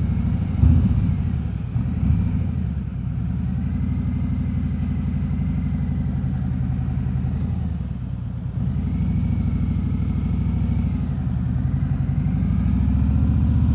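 Harley-Davidson Road King Special's V-twin engine running under way, heard from a microphone inside the rider's helmet. It eases off briefly about eight seconds in, then pulls again. The engine is new and still being broken in.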